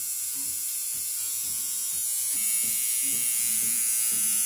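Electric tattoo machine buzzing steadily while the needle works into skin; a higher tone joins in a little over two seconds in.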